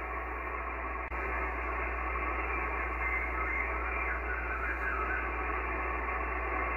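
Icom IC-7300 HF transceiver's speaker putting out steady band-noise hiss in single-sideband receive, narrow and muffled with nothing above about 3 kHz, while the band is monitored for a reply to a call. A steady low hum sits underneath, with one faint click about a second in.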